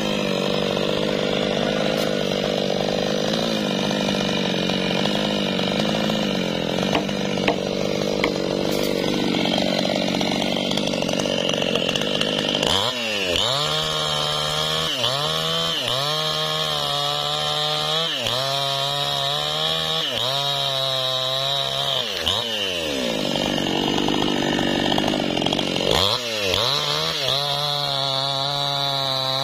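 New West 628 two-stroke petrol chainsaw cutting a leucaena (lamtoro) log, held at high revs. From about halfway on, the engine speed drops and climbs back roughly once a second.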